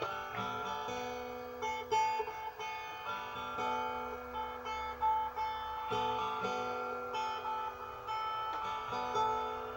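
Viola caipira, the Brazilian ten-string folk guitar, being plucked: a tune of picked notes and short strummed chords, several notes a second, each left to ring.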